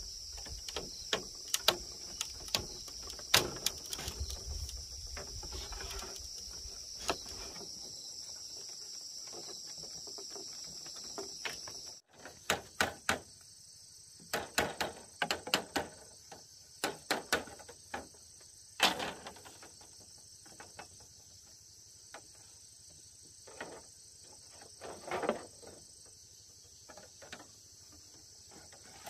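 Insects chirring steadily, with scattered sharp knocks and taps over them; the sound breaks off abruptly about twelve seconds in and resumes.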